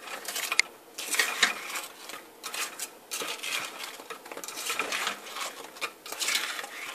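Frozen goat milk cubes clinking and scraping against a glass bowl as they are stirred with a long-handled utensil, with lye sprinkled over them to start the milk melting for cold process soap. Irregular clinks and scrapes, several a second.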